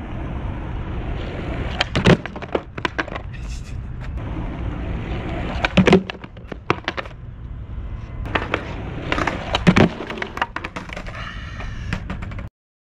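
Skateboard on asphalt: wheels rolling with a low rumble, broken three times, about four seconds apart, by a cluster of sharp clacks as the board pops and it and plastic traffic cones clatter in failed ollies over stacked cones.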